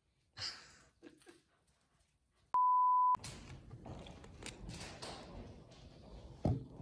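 A single loud, steady beep tone of about half a second, about two and a half seconds in. After it comes the padding and clicking of a corgi's paws and claws walking on a hardwood floor, with a thump near the end.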